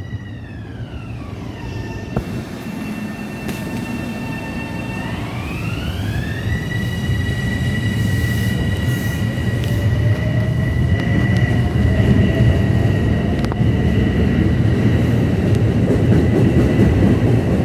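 Train at the platform with an electric drive whine that falls in pitch over the first second or two, holds, then rises again about five seconds in and holds. A low rumble of the train grows steadily louder underneath.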